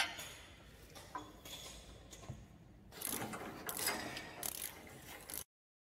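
Ratchet socket wrench clicking as it tightens the nuts on the anchor bolts of a washer extractor's base frame: a few scattered clicks, then a longer run of rapid ratcheting about three seconds in that cuts off suddenly near the end.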